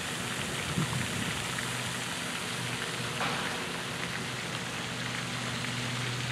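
Steady splashing hiss of a water fountain spraying into a pond, with a faint low steady hum underneath.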